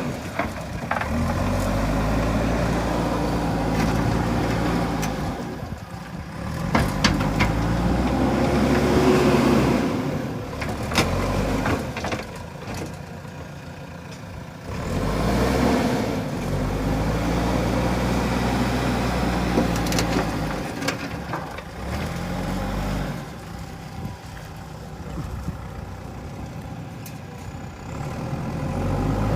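JCB 3DX Super backhoe loader's diesel engine revving up and dropping back again and again as the hydraulics take load during digging, with a few sharp knocks from the bucket or arm.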